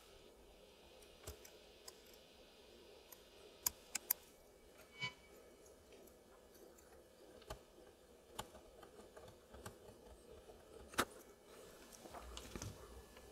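Faint, irregular clicks and scrapes of a craft knife blade picking set wax off a radio coil, about a dozen small ticks with the sharpest about eleven seconds in.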